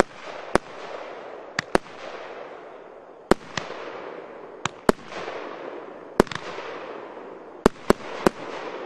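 36-shot, 30 mm consumer firework cake firing: about a dozen sharp reports at irregular intervals of roughly a quarter second to a second and a half, each followed by a fading tail of noise.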